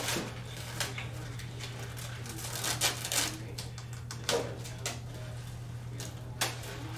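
Scattered light taps and crinkles of self-adhesive vinyl film being handled and pressed onto a model aircraft's body, over a steady low hum.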